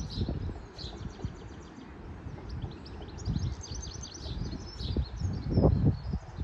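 Small birds chirping and twittering in quick high runs, over irregular low gusts of wind buffeting the microphone, the strongest gust about five and a half seconds in.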